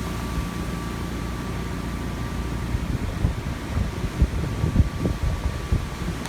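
Low rumble of a car heard from inside the cabin, with irregular low thumps and knocks from about three seconds in.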